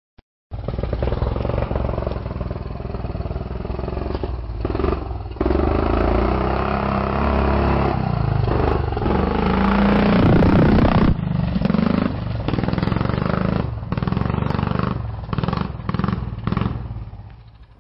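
125 cc pit bike's single-cylinder four-stroke engine revving up and down as the bike rides past close by. It is loudest around the pass, then turns choppy with short throttle blips and fades away toward the end.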